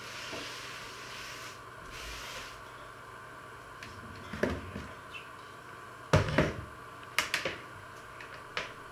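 Cloth wiping across a wooden worktop, then a series of sharp knocks and clunks, in pairs about a second and a half apart, as an electric hand mixer and other things are picked up and set down on the counter.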